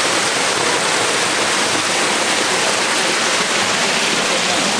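Mountain runoff pouring over a concrete drop into a drainage pit: a loud, steady rush of falling water, the channel running full after heavy rain.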